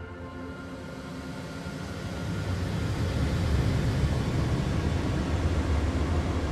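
A low rushing rumble that swells up about two seconds in and then holds, while the held notes of the music fade away underneath it.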